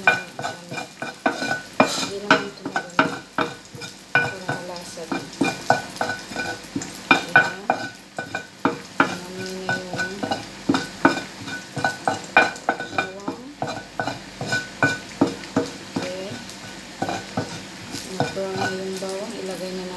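Wooden spatula scraping and knocking against a ceramic-coated frying pan in quick strokes, a few a second, while garlic sizzles lightly in a little olive oil. The strokes thin out near the end.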